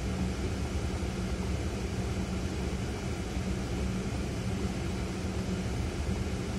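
Ford Fiesta engine idling with the car standing still: a steady low hum with a droning tone.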